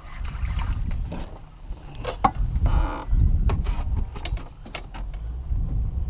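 Wind buffeting the microphone in an uneven low rumble, with scattered sharp clicks and knocks and a short rustling burst a little under three seconds in.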